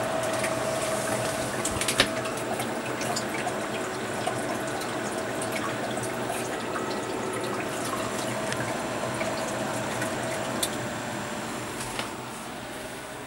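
A small 12-volt water pump running and splashing water into a tub, with a steady motor whine and the hiss of water. There are sharp clicks at about two seconds and twelve seconds in, and the sound eases off toward the end.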